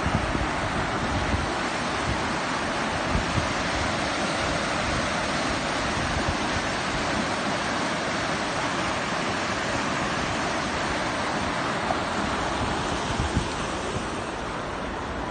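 Rushing river water making a steady hiss, with wind buffeting the microphone in low, uneven rumbles.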